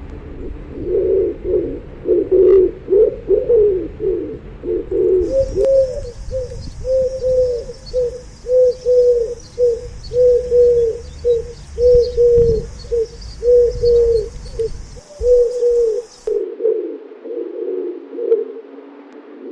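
Pigeons cooing, several calls overlapping. In the middle stretch a single bird gives a steady run of short coos, about one a second, over a low rumble.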